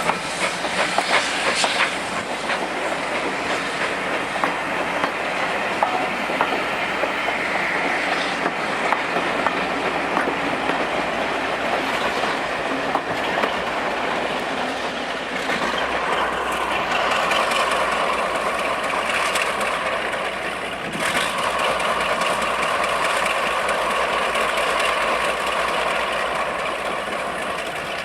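Heritage railway train running along the track, its wheels clicking over the rail joints. About halfway through a steady set of whining tones joins the running noise.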